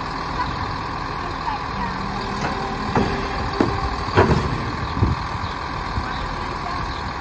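Automated side-loader garbage truck idling while its hydraulic arm lowers an emptied cart back to the ground, with a steady whine over the engine. Several clanks from the arm and cart come between about three and five seconds in, the loudest about four seconds in, as the cart is set down.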